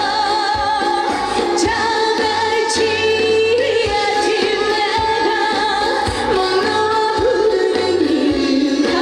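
A trot song played loud over a PA, with a woman singing a long, bending melody over a backing track's steady drum beat and bass.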